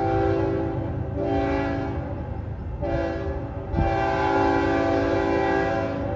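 Freight locomotive's air horn sounding a chord in a series of blasts: one already sounding at the start, two short ones, then a longer blast of about two seconds. A steady low rumble runs underneath.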